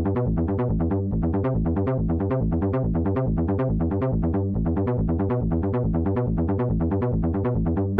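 Electronic background music: a fast, evenly repeating synthesizer pattern with a steady pulse.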